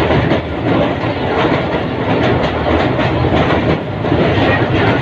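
Moving passenger train heard from on board: a steady loud rumble of wheels on rails with a repeated clickety-clack over the rail joints.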